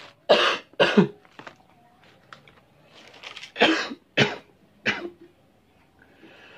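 A person coughing from the chili heat of spicy seblak noodles: two sharp coughs just after the start, then three more about half a second apart from around three and a half seconds in.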